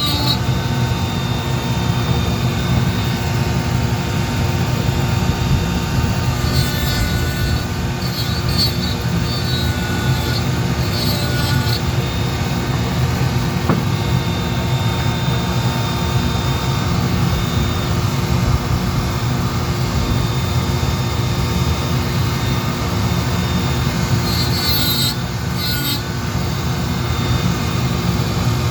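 A small power carving tool running steadily, its whine shifting slightly in pitch every few seconds as it works the wood.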